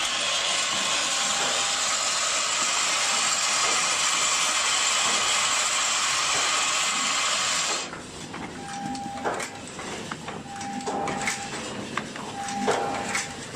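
Thermocouple tip assembling machine running. A steady loud hiss covers the first eight seconds, then stops. After that the machine's cycle repeats about every two seconds: a short steady tone of about half a second, with clicks and clacks from the mechanism.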